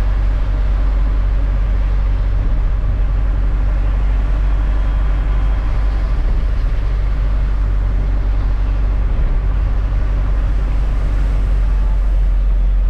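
Steady low drone of a diesel freight truck's engine and road noise, heard inside the cab while driving.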